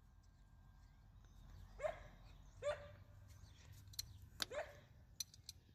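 A dog barking three times, faint, with a few sharp clicks near the end.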